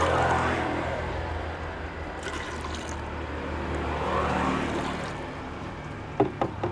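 Liquid poured from a plastic measuring jug into a plastic bucket already holding liquid, trickling and splashing: first molasses, then the rinse from the jug about four seconds in. A few sharp knocks near the end as the jug is shaken out over the bucket.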